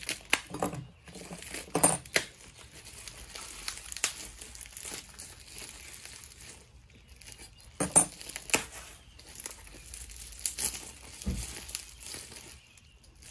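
Plastic packaging crinkling and being torn open, with light clicks and taps of small metal parts handled on a workbench. The loudest crackles come about two seconds in and again around eight and ten seconds.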